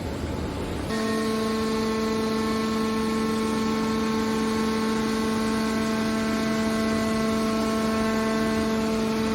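A rough, noisy machine running sound that changes abruptly about a second in to a steady machine hum with a pitched drone, holding level throughout.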